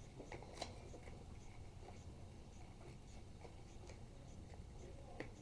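Faint handling of a toy building-block kit: a few light clicks and soft rustles, over a low steady room hum.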